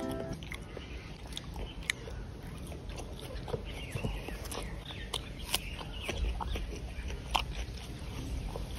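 Close-up chewing and wet mouth smacks of someone eating chicken on the bone with their hands, with many short scattered clicks.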